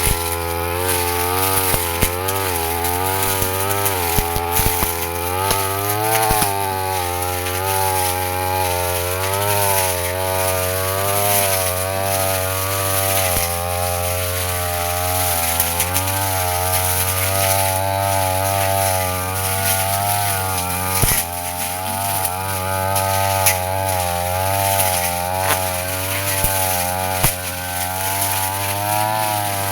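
Two-stroke brush cutter engine running continuously while its blade cuts grass and brush, the engine pitch wavering up and down as the blade bites and frees, with scattered sharp ticks of the blade striking stems.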